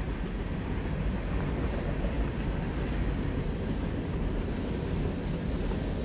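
A steady low rumble of background noise with no distinct events.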